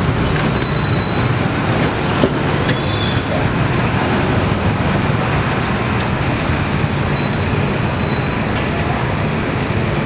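A loud, steady background rumble with a few short, high chirps from budgerigars in the first few seconds and again near the end.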